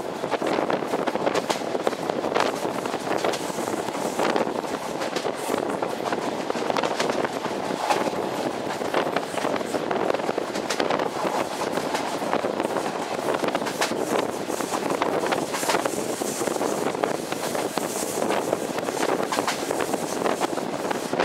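A passenger train running steadily, with the rumble and irregular clicking of its wheels on the rails, and wind rushing over the microphone held out of the carriage window.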